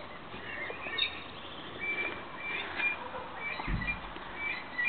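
Small birds chirping faintly in short calls, with a dull low thump about three-quarters of the way through.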